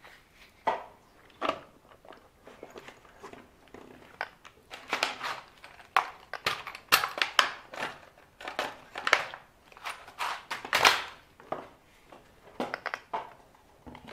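Hands handling the plastic parts of an RC car: a string of irregular clicks, knocks and short rustling, crinkling scrapes, the longest about 11 seconds in.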